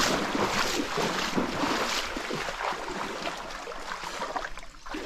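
Shallow creek water sloshing and splashing around people wading in it, louder over the first couple of seconds and then quieter.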